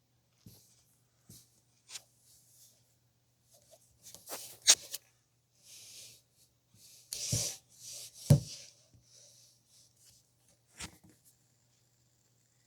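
Scattered clicks and knocks with short rustling hisses over a faint low hum; the two loudest knocks come about halfway through. A faint steady high whine comes in near the end.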